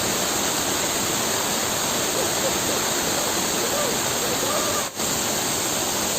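Waterfall pouring in a steady, dense rush of falling water, briefly dropping out for an instant about five seconds in.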